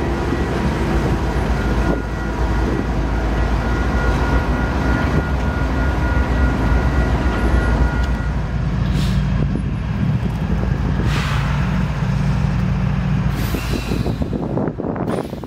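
Iowa Interstate GE ES44AC diesel freight locomotives passing and running, with heavy wind noise on the microphone. In the second half a low steady engine drone, with a few short hisses of air from the train's air brakes.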